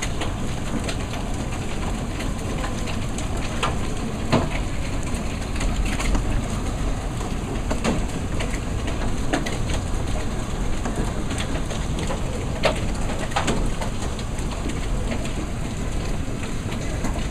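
Hailstorm with nickel-size hailstones pelting down alongside heavy rain. A steady rush of rain carries frequent, irregular sharp cracks of single stones striking.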